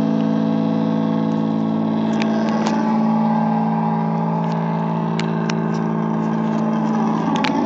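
Electric guitar left on its stand, sustaining a steady, loud, many-toned drone through a Vox amplifier with no hands on the strings. A few short clicks sound over it.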